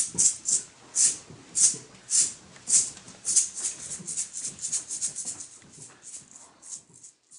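Hand shakers rattling in a rhythmic pulse over faint hand drumming in a drum circle. The shaking is quick at first, slows to about one and a half shakes a second, quickens again and fades out near the end.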